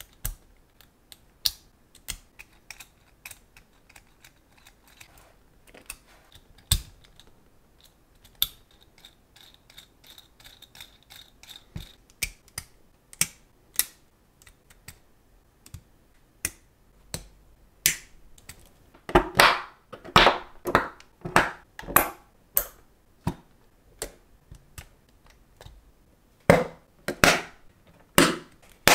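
Lego plastic parts clicking and snapping together as a train wheel bogie is assembled by hand: wheels pressed onto axles and plates pressed onto studs. Irregular sharp clicks, with quicker, louder runs of clicks in the second half.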